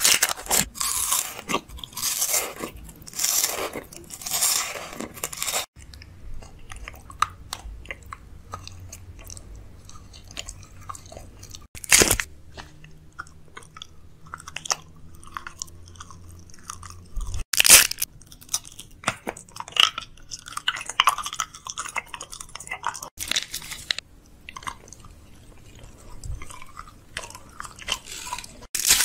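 Close-up chewing and crunching of food by a person's mouth. The crunching is dense for the first few seconds, then gives way to sparser wet chewing and clicks, broken by a few short, loud bursts.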